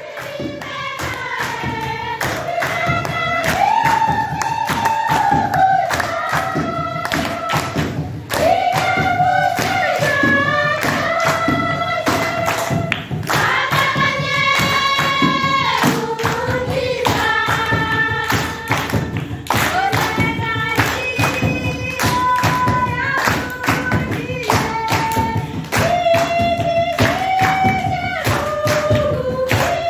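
A group of women and children singing a song together, with hand-clapping keeping a steady beat under the voices.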